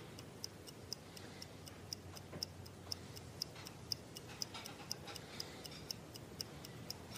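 Faint ticking clock, about two ticks a second at an even pace.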